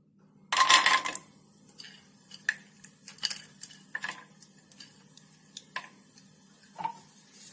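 Cashew nuts tipped into a small pan of hot melted ghee land with a short loud burst about half a second in, then a spoon clicks and scrapes against the pan as they are stirred.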